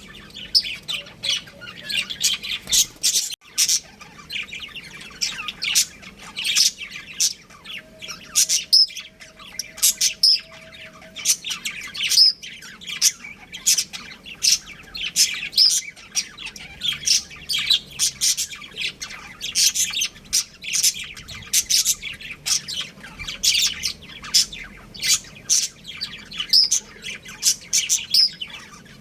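A pair of budgerigars chirping and chattering, with a fast, unbroken run of short, high calls.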